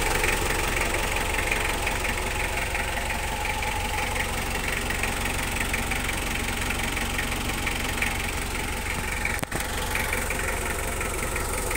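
Mitsubishi Kuda's four-cylinder diesel engine idling steadily with its oil filler cap off. The mechanic says this engine has blow-by ('ngobos') and overheats with the AC on, and it is about to be overhauled.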